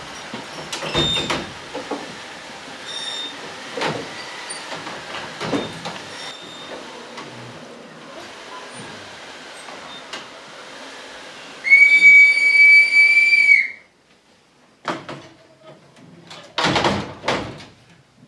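A noisy wash with knocks every second or two, then a loud, steady high whistle held for about two seconds that cuts off abruptly, followed by two short bursts of clattering knocks.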